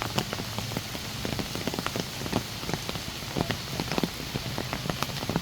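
Heavy monsoon rain falling: a steady hiss with many large drops striking at irregular moments, several a second.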